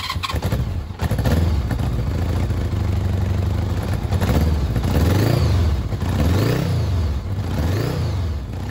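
1982 Honda Gold Wing Aspencade's flat-four engine running, then revved in short throttle blips about once a second from about four seconds in.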